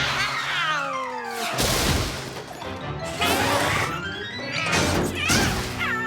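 Cartoon background music with slapstick sound effects: a falling slide over the first second and a half, then a sudden crash, with more sliding glides later.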